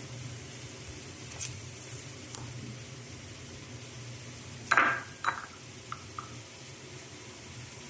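A utensil clinking against a ceramic bowl as ice cream is scooped into it: one loud ringing clink a little before five seconds in, a second shortly after, then two light taps, over a steady low background hum.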